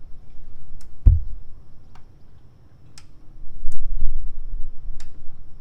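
Torque wrench clicking as the oil filter is tightened to 18 foot-pounds: sharp single clicks about once a second, with a heavy thump about a second in and low handling rumble near the end.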